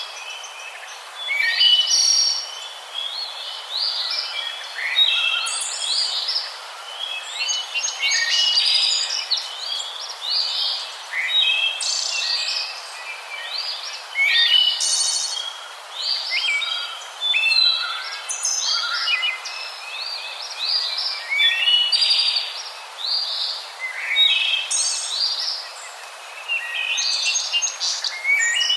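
Many small birds chirping and twittering at once, with short, quick, overlapping high chirps and trills coming continuously.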